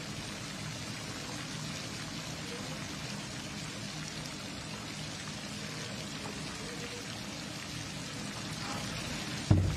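Steady hiss of water spraying onto a diving pool's surface from the surface-agitation sprinklers, with a sudden loud knock near the end.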